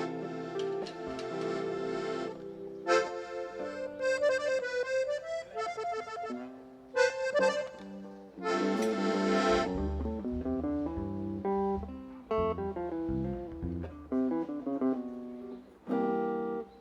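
Accordion and guitar playing an instrumental passage without singing: held accordion chords over plucked guitar notes, with low bass notes joining about ten seconds in.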